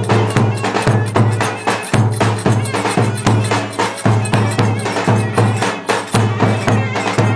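Live Turkish wedding dance music led by clarinets over a steady drum beat.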